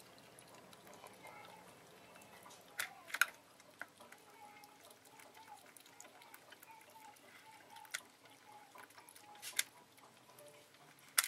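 Ferret lapping water from a plastic bucket: quiet wet lapping and dripping, with a few sharp splashing clicks scattered through, the loudest about three seconds in and near the end.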